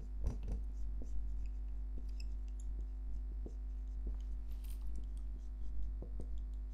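Scattered light taps and clicks of a formula being written out, over a steady low electrical hum.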